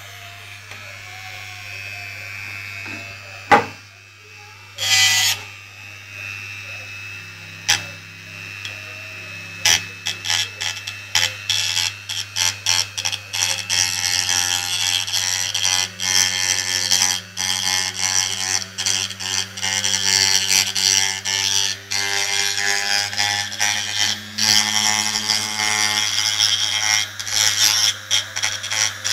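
Dremel rotary tool running with a steady high whine. A sharp click comes about three and a half seconds in. From about ten seconds in, the whine breaks into rapid stuttering dips, several a second.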